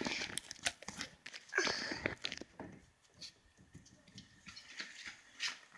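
Faint scattered knocks, clicks and rustling as a child moves about and climbs into a trampoline's netted enclosure. A brief, louder rustly noise comes about one and a half seconds in, then the sounds thin out to a few small clicks.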